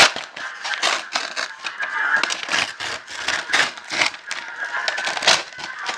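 Plastic packaging of an instant noodle meal crinkling and a rigid plastic lid and bowl clicking and knocking as they are handled, in a quick string of sharp clicks and rustles, loudest at the very start and again near the end.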